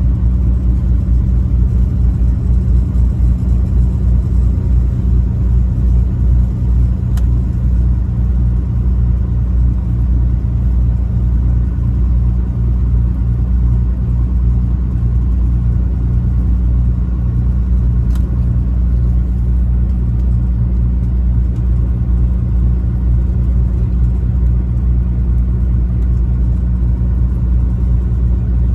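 A truck's engine and road noise while driving: a steady, low rumble that holds even throughout, with two faint ticks.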